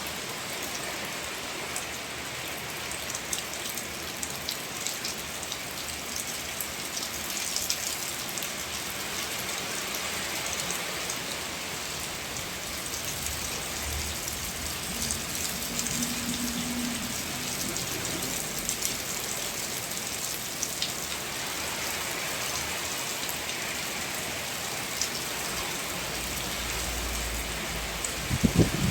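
Steady heavy rain falling during a storm, many drops clicking on surfaces, with a low thump near the end.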